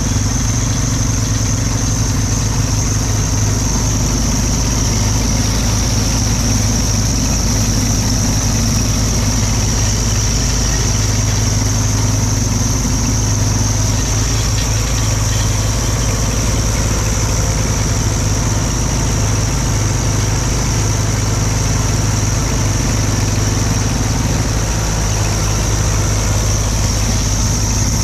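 Farm tractor engine running steadily at constant throttle, with a steady high-pitched whine over the engine drone.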